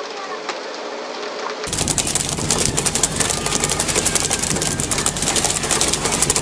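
A fishing boat's engine running with a rapid, dense rattling clatter over sea noise. It starts abruptly about two seconds in, replacing a thinner, quieter background.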